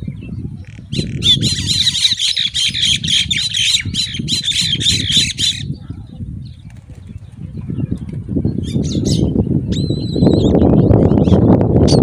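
Eagles calling at the nest: a rapid run of shrill, wavering high-pitched calls for about four seconds, then a few short calls and a brief steady whistle near the end. A low noisy rumble lies underneath and grows louder near the end.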